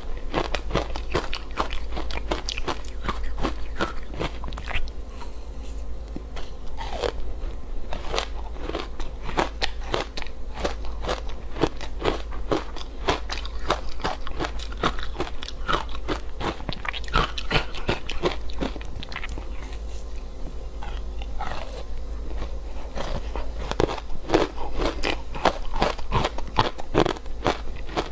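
Close-up chewing of frozen matcha-powdered ice: continuous soft, crackly crunches with rapid small clicks, the steady sound of powdery ice being bitten and chewed.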